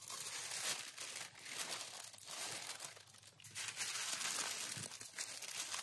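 Baking parchment paper crinkling and rustling in irregular handfuls as it is folded around a whole raw lamb carcass, with a quieter lull about halfway through.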